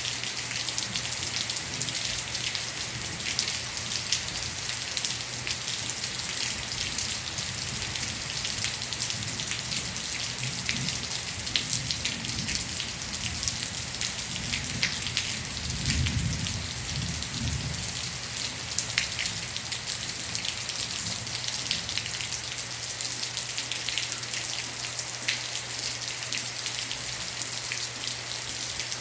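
Light rain falling steadily, with many individual drops striking close by. A low rumble of distant thunder swells and fades about halfway through.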